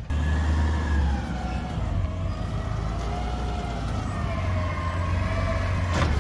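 Side-loader garbage truck's diesel engine running with a steady low rumble, overlaid by a whine that slowly wavers up and down in pitch. A sharp knock comes near the end.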